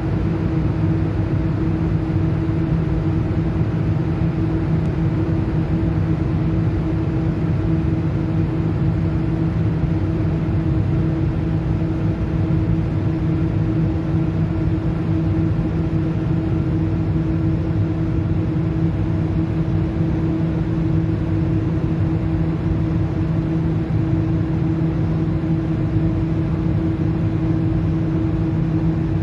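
Ship machinery running: a deep, steady engine drone with a few fixed humming tones over it, unchanging throughout.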